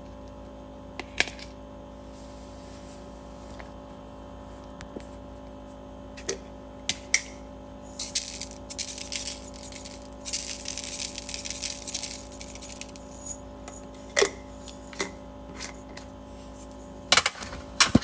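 Small knife tapping on a cutting board a few times while hard-boiled eggs are cut, then several seconds of a glass seasoning shaker rattling as it is shaken over the eggs, and more knife taps near the end as fruit is cut. A faint steady hum runs underneath.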